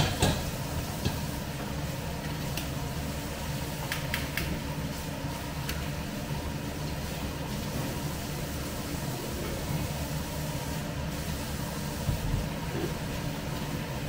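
Steady low rumble of kitchen fan noise at a lit gas hob. A few light clicks and taps of utensils on a pan come in the first six seconds or so.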